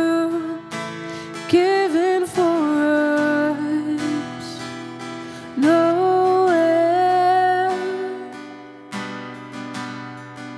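A woman singing a slow song with long held notes over a strummed acoustic guitar. About eight seconds in the voice stops and the guitar strumming carries on alone.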